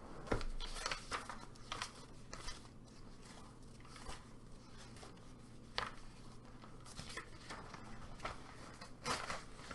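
Light handling noises from brush markers and paper on a desk: scattered small clicks, taps and rustles, with a sharper click a little before the middle and another near the end.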